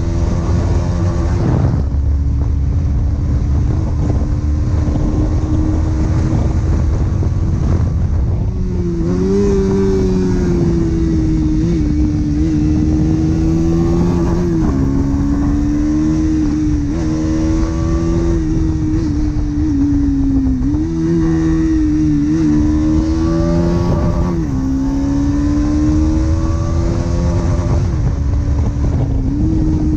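Bajaj Pulsar NS200's stock single-cylinder engine and exhaust running on the move, its note holding steady and then falling and rising again several times as the throttle changes. A heavy low rumble of wind on the microphone lies under it.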